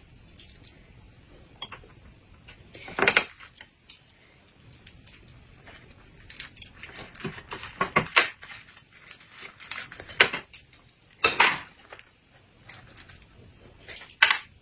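Chopsticks and porcelain plates and bowls clinking and knocking as food is handled at the table, in scattered irregular clicks with a few louder knocks.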